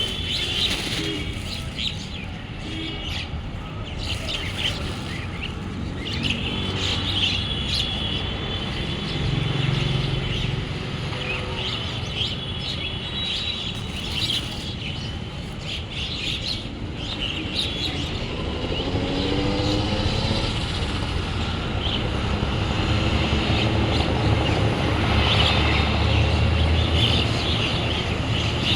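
A flock of small birds chirping and twittering busily while feeding, many short calls overlapping. Under it runs a low rumble of road traffic that grows louder in the second half.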